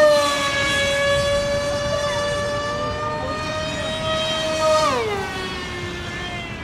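Small electric motor and propeller of a homemade RC jet plane whining steadily in flight, then slowing about five seconds in, its pitch falling.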